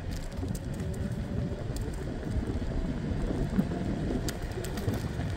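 Steady rushing noise of wind buffeting the microphone, mixed with the road and running noise of a moving scooter.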